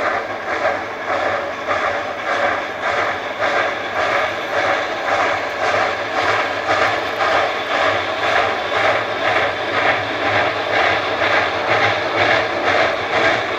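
Narrow-gauge steam locomotive working hard as it hauls its train, its exhaust chuffing in a steady, quick rhythm over a constant hiss of steam.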